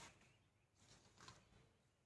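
Near silence, with a couple of faint rustles of banana leaf being handled and laid down, a little under a second in.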